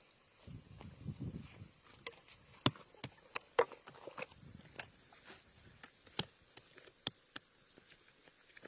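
Irregular sharp taps and clicks, about a dozen spread unevenly, with a soft low rustle near the start.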